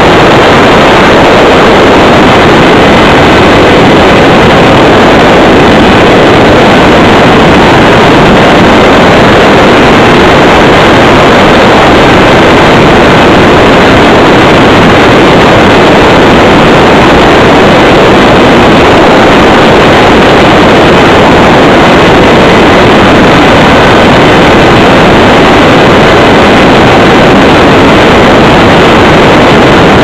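Airflow and the electric motor and propeller of a Radjet 800 RC plane in flight, heard through its onboard camera's microphone: a steady, heavily distorted noise at the very top of the recording level, with a faint steady whine in it.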